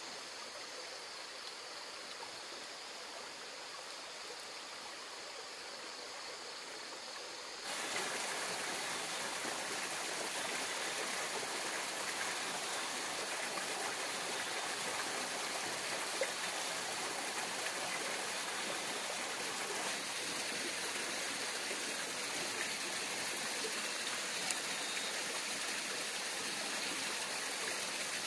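Shallow rocky mountain stream running: a steady rush of water that turns suddenly louder and brighter about eight seconds in.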